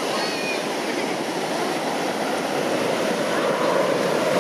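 Surf washing onto the beach, with the distant rush of jet aircraft engines growing louder near the end. A few brief high chirps come near the start.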